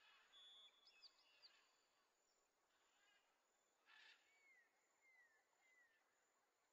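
Faint jungle ambience of scattered bird calls: a held whistle and quick chirps near the start, then three short falling whistles in a row a little after four seconds in.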